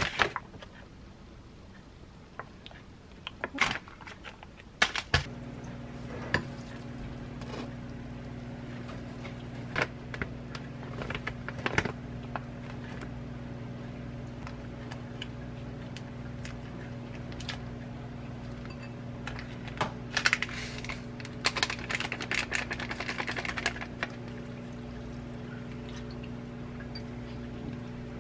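Kitchen handling sounds: plastic packaging rustles and sharp clicks come and go, and a steady low hum starts with a click about five seconds in. About twenty seconds in, water is poured into a bowl of noodles for a few seconds, with a light tapping of chopsticks.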